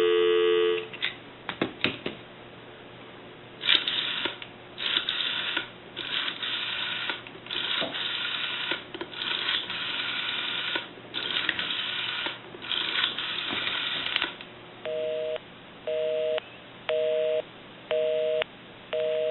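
Telephone line dial tone that cuts off within the first second as the rotary dial is worked, followed by about ten seconds of repeated rattling bursts from the dial being wound and spinning back for each digit. Near the end comes a busy signal, a two-tone beep switching on and off about once a second.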